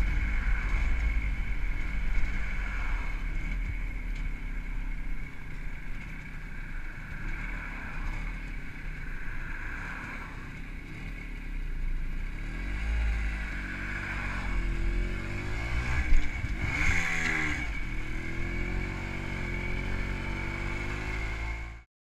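WSK 125's single-cylinder two-stroke engine, fitted with a Dellorto PHBG carburettor and CDI ignition, running under way with a heavy wind rumble on the microphone. Engine speed rises and falls several times in the second half, and the sound cuts off suddenly near the end.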